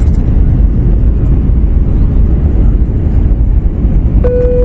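Steady low rumble of airflow and engines inside an Airbus A321 cabin on approach. About four seconds in, a single cabin chime sounds.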